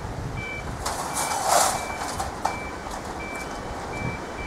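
Railway level-crossing warning alarm sounding while the crossing is activated: short, high electronic beeps repeating about every 0.7 s. A brief rush of noise passes between about one and two seconds in.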